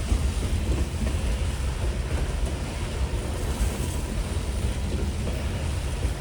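Heavy CSX freight train grinding up a grade: a steady low rumble with no distinct knocks or changes.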